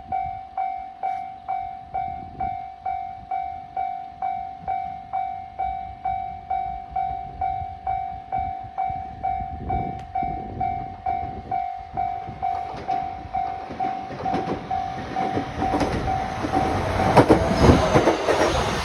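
Japanese railway level-crossing warning bell dinging steadily about twice a second, while a train approaches from about twelve seconds in and passes, its wheels clacking over the rail joints and growing loudest near the end.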